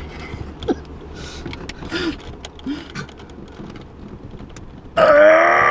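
Men straining at arm-wrestling: rustling clothes, heavy breathing and short grunts over a steady low hum, then a sudden loud, drawn-out strained yell about five seconds in.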